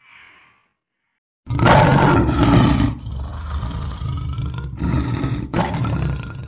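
Loud sound effect of an animated fire-logo channel intro: a sudden blast about one and a half seconds in, then a deep rumble that swells several times.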